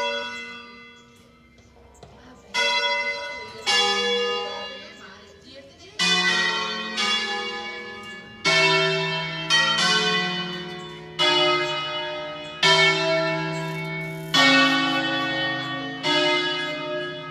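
Church bells of an eight-bell tower sounding a pre-programmed solemn concerto. Single strikes on bells of different pitch follow one another at uneven intervals, about a dozen in all, each ringing on into the next, the pace quickening after the first few.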